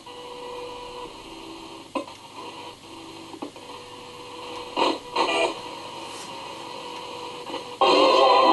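Spirit box sweeping through radio stations: steady static hiss broken by brief fragments of broadcast sound about two seconds in and again around five seconds, then a loud burst of radio noise near the end.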